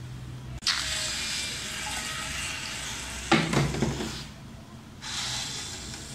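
Water running and dripping off the boat's yellow plastic collecting tray as a small DC motor lifts it out of the water. There is a louder knock about three and a half seconds in.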